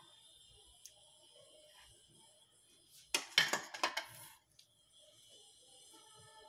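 Steel idli-stand plate and a spoon clattering as the plate is handled and set aside. There is a quick cluster of metal clinks and knocks about three seconds in, with a faint clink just before it.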